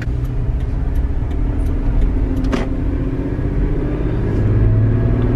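Car engine and road noise heard from inside the cabin while driving: a steady low hum that grows louder about four seconds in.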